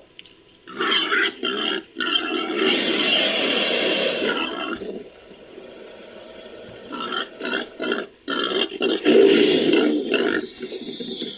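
Designed creature calls for Eryops, made by layering crocodilian and wild boar recordings. A few short grunts are followed by one long, hissing roar about two seconds in, and then a run of short grunts in the second half.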